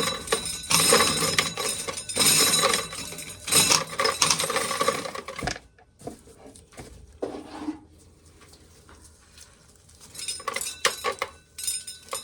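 Dried corn kernels being shelled off the cob by hand, rattling and clicking as they fall into a container: a dense patter for about five seconds, then only scattered clicks, picking up again near the end.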